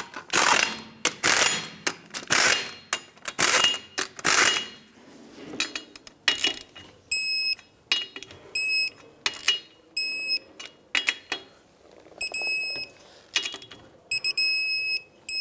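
A 3/8-inch impact gun runs in five short bursts, spinning the wheel's five lug nuts down. Then a digital torque wrench beeps in short groups, again and again, as each lug nut is tightened to 100 foot-pounds, with light clicks of the wrench between the beeps.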